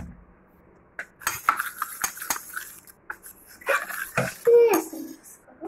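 Metal spoon stirring a wet turmeric paste in a stainless steel bowl, clinking and scraping against its sides, with the strokes starting about a second in.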